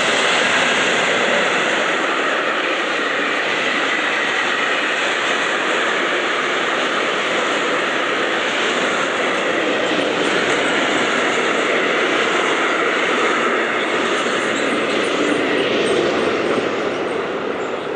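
Intercity train hauled by a DB Class 120 electric locomotive pulling away, a steady loud rushing of the train rolling over the rails with a faint high whine, easing slightly near the end.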